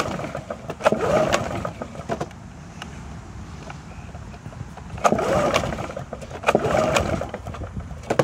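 Recoil pull starter on a Briggs & Stratton Quantum lawn mower engine yanked three times, about a second in and twice near the end. Each pull gives a short cranking whirr, and the engine does not catch.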